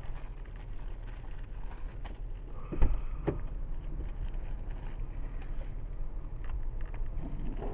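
Car idling, heard from inside the cabin as a steady low rumble, with two short knocks about three seconds in.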